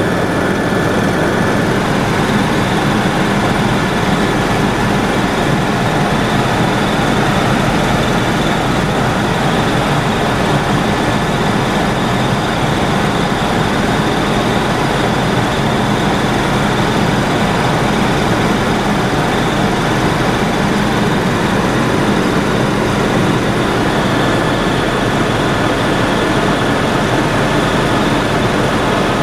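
Steady cabin noise of a helicopter in cruise flight: the even drone and rush of engine and rotor heard from inside the cabin, with a faint constant high whine over it.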